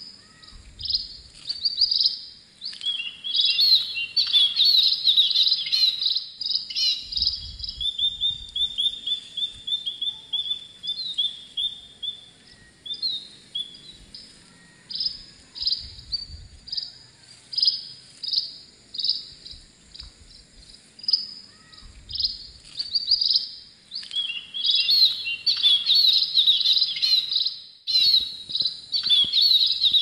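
A wren sings its loud, rapid song in long bursts of fast trills and chattering notes, including one long, even trill about a third of the way in. Shorter runs of notes fill the gaps between the bursts.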